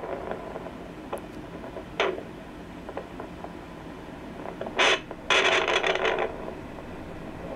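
Handheld fetal Doppler's speaker hissing steadily as its probe is pressed against a jungle boa's scales near the neck, searching for the mother's slow heartbeat. A sharp click comes about two seconds in, then a short scraping burst and a longer one of about a second near the five-second mark as the probe rubs over the scales.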